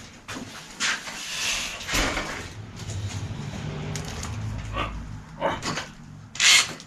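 A Gazelle Dutch bicycle being lifted and clamped into a workshop repair stand: the frame and wheels clatter and knock against the stand, with scattered clicks and a low rumbling in the middle, and a sharp knock near the end as it settles in the clamp.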